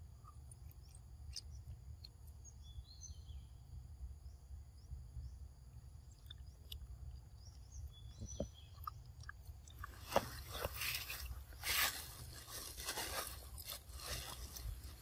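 Pig-tailed macaque eating fruit: faint mouth clicks over a steady insect drone and a few bird chirps, then from about ten seconds in several seconds of loud, close crunching and rustling.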